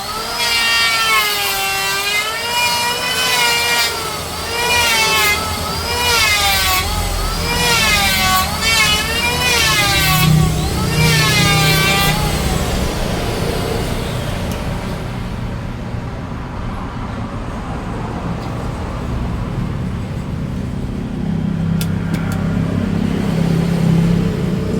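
Electric power tool motor running hard, its pitch dipping and recovering about once a second as it is loaded and eased off while cutting wood. In the second half it settles into a steadier, noisier run.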